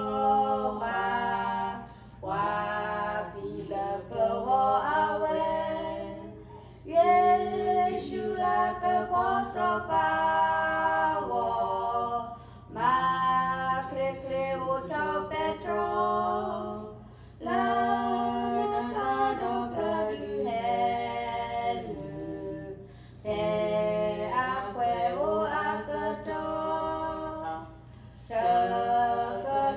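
Two women singing a hymn together without instruments, into a microphone, in sung phrases of a few seconds with short pauses for breath between them.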